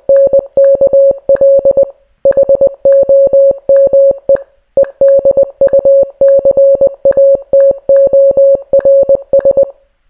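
Computer-generated Morse code: a single steady beep keyed into fast dots and dashes, spelling out 'Twinkl Home Educators'. Two short pauses, about two seconds and four and a half seconds in, mark the gaps between the words, and the beeping stops just before the end.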